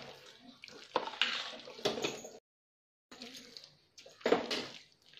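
Metal spoon stirring thick mashed tapioca in a stainless steel pressure cooker: irregular scrapes and soft squelches, with sharper knocks of the spoon on the pot about a second in, near two seconds and past four seconds. The sound drops out to dead silence for a moment halfway.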